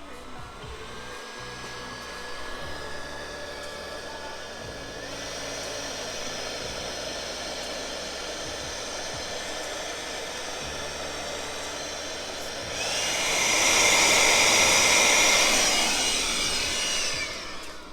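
Battery-powered leaf blower blowing air onto a campfire to get wet wood burning. Its motor whines up at the start, steps up in speed about five seconds in, runs at full speed and louder from about thirteen seconds in, then winds down near the end.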